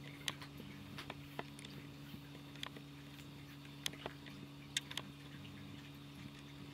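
Faint steady low hum with scattered small clicks and ticks.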